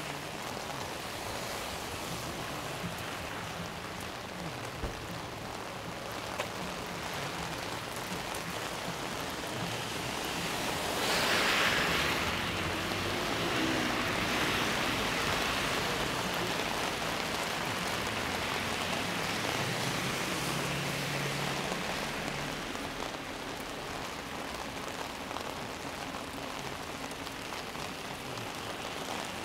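Heavy rain falling steadily, an even hiss, with a louder swell of hiss about eleven seconds in that fades over the next few seconds.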